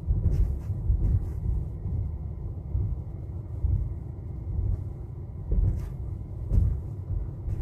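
Low, steady rumble of a car driving over a concrete slab road, heard from inside the cabin, with a few short knocks.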